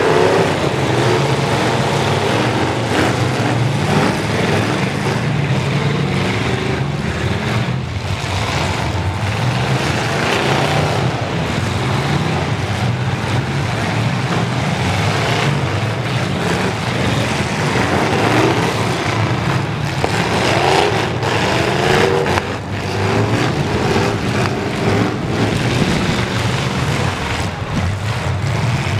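Several demolition-derby pickup truck engines revving hard and unevenly, pitch rising and falling, with occasional sharp crashes of collisions.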